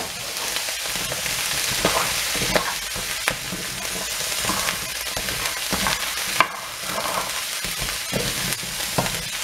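Chopped vegetables sizzling as they sauté in oil in a non-stick frying pan, stirred with a plastic spatula. The spatula scrapes and knocks against the pan now and then.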